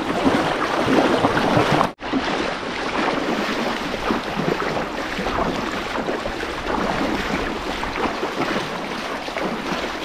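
Fast-flowing mountain stream rushing over rocks, a steady noise of running water that cuts out for an instant about two seconds in.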